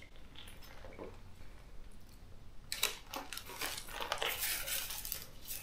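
Plastic snack wrapper crinkling as a small packet is handled and torn open: quiet scattered clicks at first, then a run of crackly rustling starting a little under halfway through.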